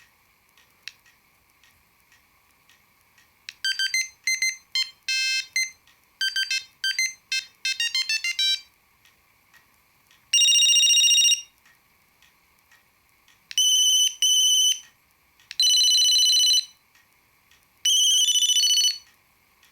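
An Ericsson T20e mobile phone playing its built-in monophonic ringtones through its small speaker. A quick melody of short beeps plays from about three seconds in. After a pause come four longer, held beeps a few seconds apart. Faint clicks are heard in the quiet gaps.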